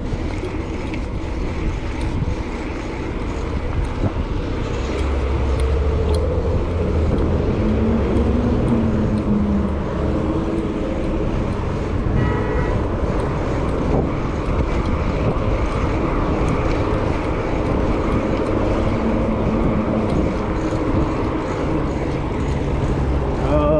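City street traffic: motor vehicles passing with a steady rumble of engines and tyres, growing heavier for a few seconds near the start as a large vehicle goes by. A brief high-pitched tone sounds about halfway through.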